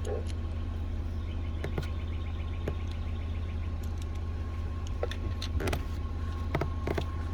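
Steady low mechanical rumble with a thin steady high whine, and scattered light clicks and taps, most of them near the end, of small parts being handled.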